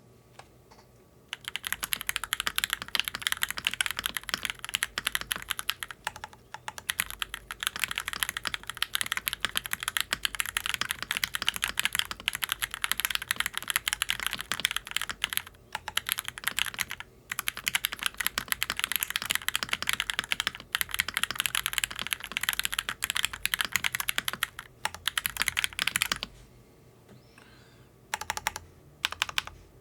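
Fast continuous typing on a Shurikey Hanzo mechanical keyboard with pre-lubed Gateron G Pro 3.0 Yellow linear switches in a steel plate, stock doubleshot ABS keycaps, tape-modded PCB, case foam and lubed stabilizers. The typing starts about a second and a half in, pauses briefly a few times, and thins to a few separate keystrokes near the end.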